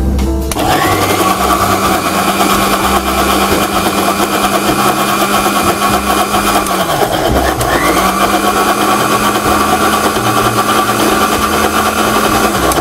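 Electric mixer grinder (mixie) motor running steadily as it wet-grinds soaked foxtail millet and moong dal into dosa batter. About seven seconds in the motor briefly winds down and speeds back up, and it dips again at the very end.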